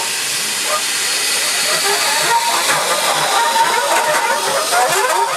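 GWR 14xx class 0-4-2T tank locomotive No. 1450 standing in steam and letting off steam with a loud, steady hiss.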